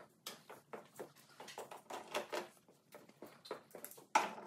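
Faint, irregular clicks and knocks of a person moving about and handling tools. Near the end comes a loud, harsh burst of noise.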